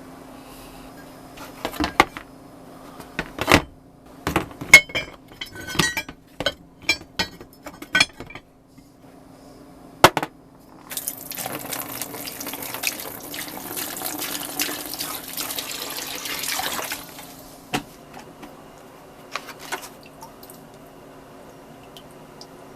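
Cast iron parts clinking and knocking against each other and a hard surface for several seconds, then water running for about six seconds, followed by a few light ticks.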